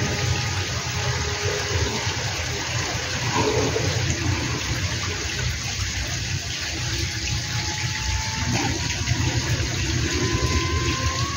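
Steady wind rumble and hiss across the microphone. Near the end a thin, high, steady whine comes in and grows: the electric motor and propeller of a Sky Surfer X8 radio-controlled plane as it comes closer.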